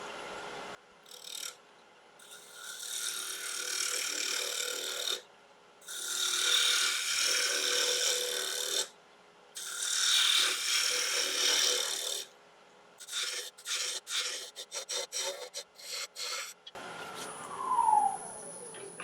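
Spindle gouge cutting a small branch-wood handle blank spinning on a wood lathe, a dry hissing scrape of the tool on the wood. There are three long passes of a few seconds each, then a run of short, quick cuts.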